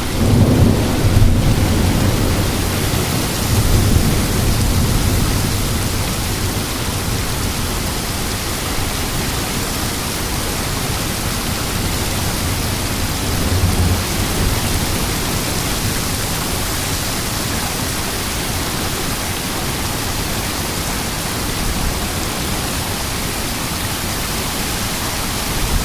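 Heavy wind-driven rain of a severe thunderstorm squall line, a steady loud downpour with low rumbling that swells in the first few seconds and again about halfway through.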